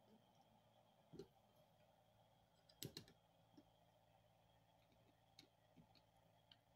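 Near silence broken by a few faint clicks of a screwdriver and screws against a small clear plastic tuner box being put back together, the loudest a pair about three seconds in.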